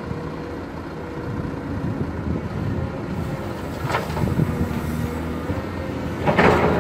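Caterpillar 320 hydraulic excavator's diesel engine running steadily as it digs and swings a loaded bucket. Near the end, a loud rush of soil as the bucket empties into the steel bed of a dump truck, with a shorter rush about four seconds in.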